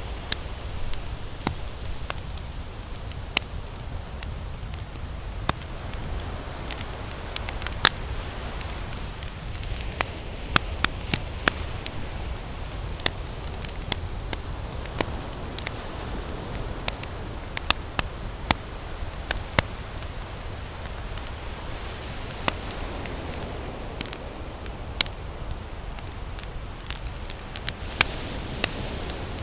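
Campfire crackling, with frequent irregular sharp pops over a steady low rumble.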